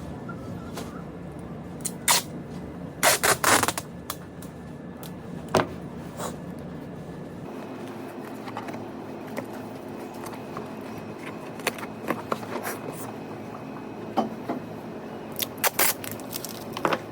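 Scattered clicks and knocks from objects being handled, a quick cluster of them about three seconds in, over a steady low hum that drops away about halfway through.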